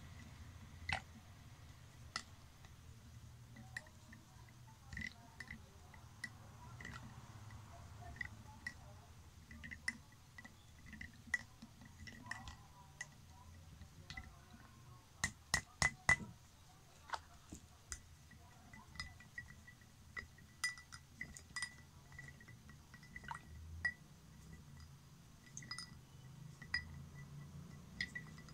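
Plastic spoons stirring liquid in drinking glasses, knocking against the glass in scattered light clinks, each with a short ring. About halfway through comes a quick run of louder clinks.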